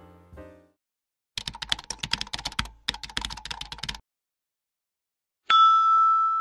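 Keyboard typing sound effect: a rapid run of key clicks lasting about two and a half seconds with a short break in the middle. After a pause, a single loud ding rings out and fades slowly.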